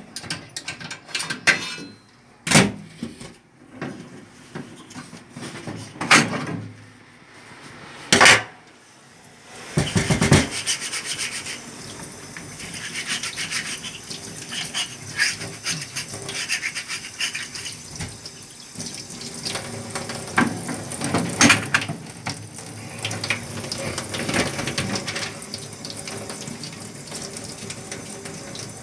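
Metal parts of a kimbap machine's cutter knocking and clattering as they are taken apart, a few sharp knocks spaced out over the first ten seconds. From about ten seconds in, a tap runs into a stainless steel sink while the comb-like cutter parts are rubbed and scrubbed clean, with small metallic clatters.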